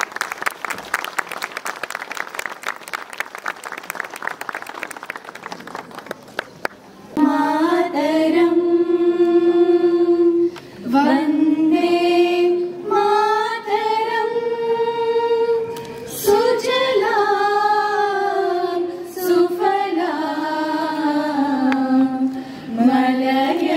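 Clapping for the first several seconds, dying away. Then a group of women singing in unison without instruments, with long held notes and slides between pitches.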